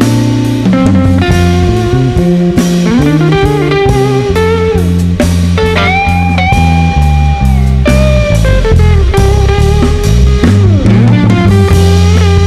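Instrumental jazz-blues-rock trio of guitar, bass guitar and drum kit playing. The guitar leads with sliding, bent notes and holds one long note in the middle, over a steady bass and drum groove.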